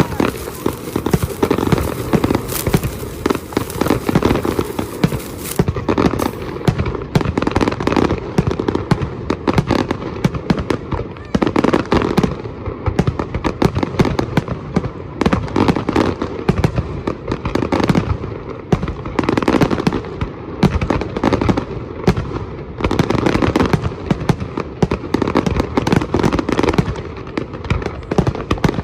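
Fireworks going off in a rapid, unbroken string of bangs and crackles, many blasts overlapping with no pause.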